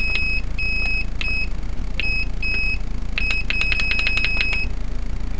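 Turnigy 9X radio transmitter beeping as its menu keys are pressed: a string of single high beeps, some short, some longer, then a quick run of about ten short beeps in roughly a second. A steady low hum runs underneath.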